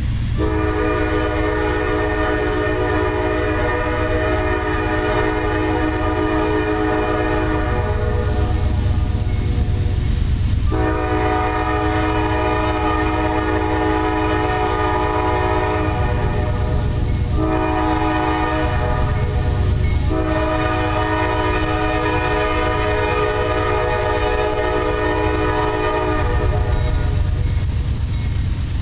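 Horn of an NS AC44C6M diesel locomotive sounding the grade-crossing signal as it approaches: two long blasts, a short one, then a long one, a chord of several tones. A low rumble runs underneath, and a thin high whine starts near the end as the train nears.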